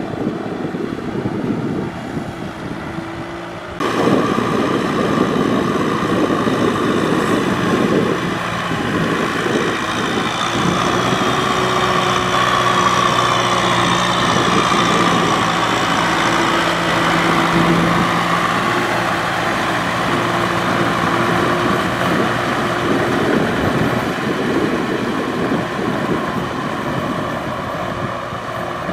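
Kubota M6040SU tractor's diesel engine running steadily under load as it pulls a rotary tiller through wet paddy mud. It gets suddenly louder about four seconds in.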